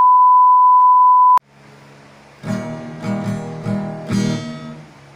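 A steady 1 kHz test-tone beep with a colour-bar test card cuts off abruptly about a second and a half in. An acoustic guitar follows, strummed in several chords from about halfway through.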